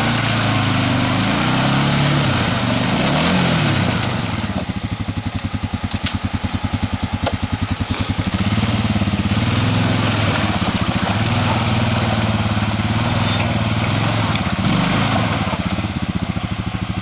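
Arctic Cat 454 ATV's single-cylinder four-stroke engine revving under throttle, pitch rising and falling. About four seconds in it drops to a low chugging idle for a few seconds, then is revved up and held before easing off near the end.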